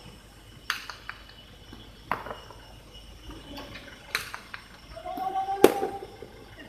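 Jai alai pelota striking the fronton wall and floor during a rally: a series of sharp cracks about every one and a half to two seconds, the loudest near the end. A voice calls out briefly just before the last crack.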